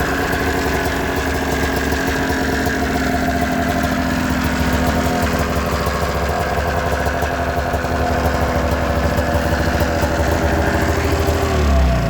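2000 ZL500 snowmobile's carbureted two-cylinder engine idling steadily. Shortly before the end its pitch drops as the engine slows.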